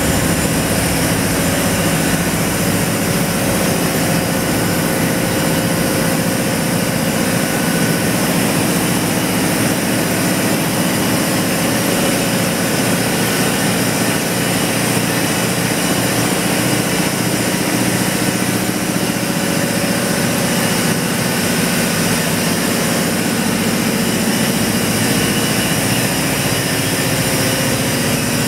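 Worthington OF5S-2 reciprocating natural gas compressors running steadily in a compressor station: a loud, even industrial din with a steady low hum under a strong hiss, unchanging throughout.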